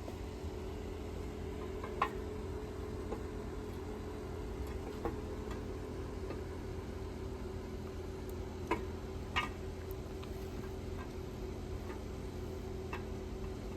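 Scattered light metallic clicks and taps of engine parts being handled, about six in all, over a steady low background hum.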